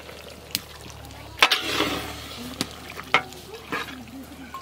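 Long metal spatula scraping and knocking against a large metal kadai while stirring a thick sizzling sheep-meat curry. There are several sharp strokes, the loudest about a second and a half in, with a brief hiss of frying after it.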